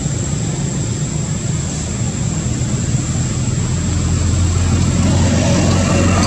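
An engine running steadily, a low rumble that grows louder about four seconds in.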